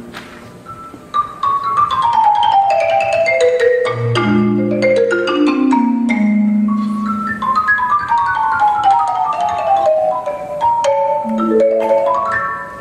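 Solo concert marimba played with mallets: fast cascading runs of notes that descend from high to low, the first starting about a second in and reaching a deep bass note, a second falling run after it, then a quick rising run near the end.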